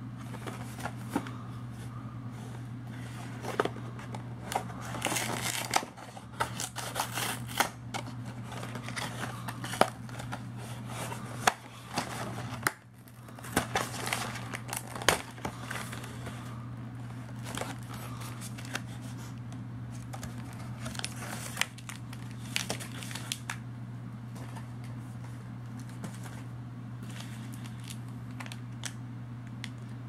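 A cardboard granola-bar box being opened and handled: cardboard tearing and rustling, with the wrapped bars inside crinkling as they are moved and pulled out. Irregular rustles and sharp clicks, busiest in the first half and thinning out near the end, over a steady low hum.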